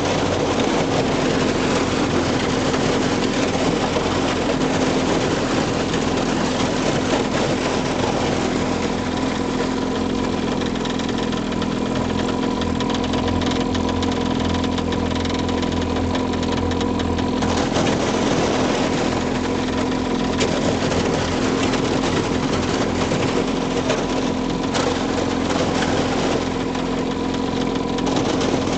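Outboard motor running at a steady speed while the boat's hull breaks through thin skim ice on a lake, with a continuous crackling hiss of ice plates breaking and scraping along the hull.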